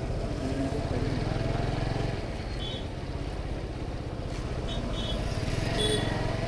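Motorcycle engine running steadily while riding, picked up by a helmet chin-mounted action camera's built-in microphone. A few brief high beeps, typical of traffic horns, come about midway and near the end.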